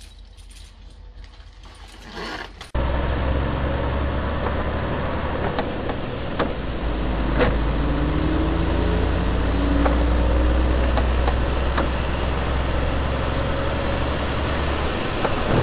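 Steady low engine and road drone heard from inside a moving vehicle, starting abruptly about three seconds in, with a few faint clicks.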